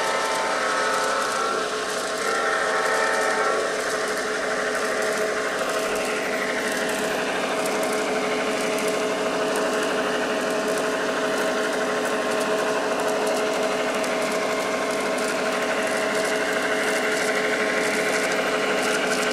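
LGB G-scale F7 A model diesel locomotive running with a freight train: a steady whirring of its electric motor and gears mixed with the rolling of metal wheels on the track. Several held tones sound together for the first three seconds or so, and a thin wavering whine runs from about six seconds on.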